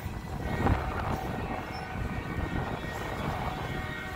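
Oil train tank cars rolling past at close range: a steady low rumble of steel wheels on the rails, with a sharper knock just under a second in.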